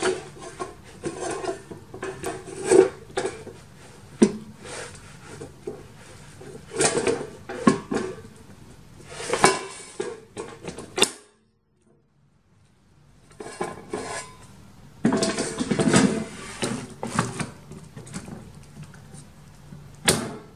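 Air fryer's wire-mesh basket and pan handled in and out of the unit: irregular clattering, scraping and knocks of the plastic and metal parts. A break of about two seconds just past the middle.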